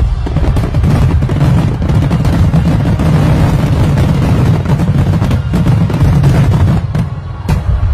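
Aerial fireworks finale barrage: many shells bursting in quick succession, a continuous rumble of booms with crackling over it, easing briefly near the end.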